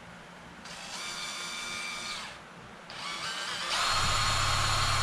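Cordless drill boring into a metal pulley: the motor whines in a short run and a brief start, then runs louder and steady from nearly four seconds in.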